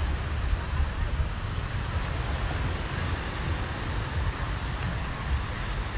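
Steady wind-and-sea noise with an uneven low rumble of wind buffeting the microphone.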